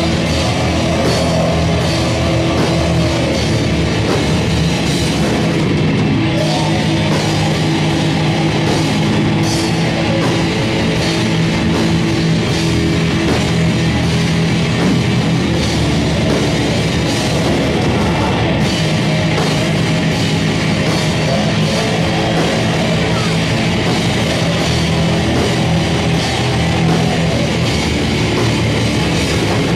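Heavy metal band playing live: distorted electric guitars, bass and a drum kit, loud and continuous.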